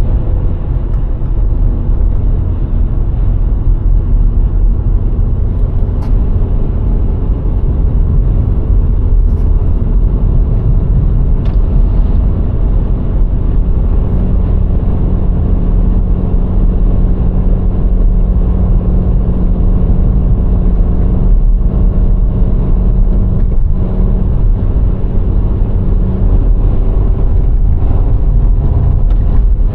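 VW Golf IV running along the road at a steady speed: a loud, even rumble of engine and tyre noise, with the 1.6-litre four-cylinder petrol engine's hum holding one steady pitch through the middle. A few faint clicks come through in the first half.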